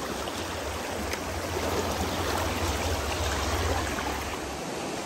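A mountain river rushing over rocks in shallow riffles: a steady, even water noise. A low rumble sits under it and stops near the end.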